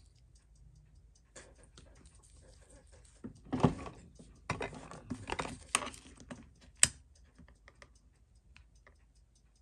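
Irregular small clicks and taps of hand tools and small metal parts being handled on a watchmaker's bench, in scattered clusters, with one sharper click a little before the end.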